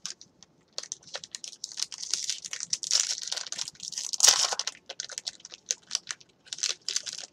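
Fiber One bar wrapper crinkling and tearing as it is opened by hand: a run of short, irregular crackles, loudest about four seconds in.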